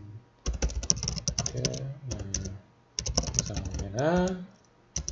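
Typing on a computer keyboard: several quick runs of keystrokes with short pauses between them. Short murmured voice sounds fall between the runs, the loudest a rising one about four seconds in.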